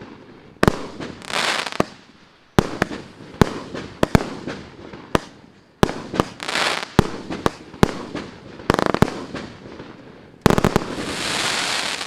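A consumer fireworks battery (cake) firing a rapid series of shots: sharp bangs at uneven intervals, several trailed by about a second of crackling hiss. A loud bang about ten and a half seconds in is followed by a sustained hiss of crackle.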